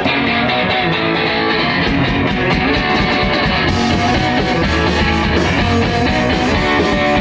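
Live rock band playing an instrumental passage: electric guitar over a drum kit, loud and dense. The cymbals get brighter about halfway through.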